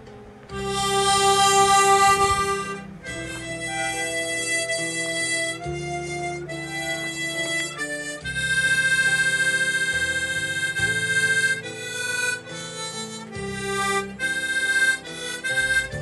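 Background music: a slow melody of long held notes, played on a reedy wind instrument, over sustained low chords.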